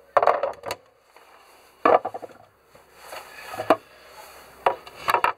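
Several sharp knocks and clatters as galley lids and lockers in a yacht's cabin are opened and handled, with a light rattle of their contents. Four or five separate knocks, with quieter rustling between them.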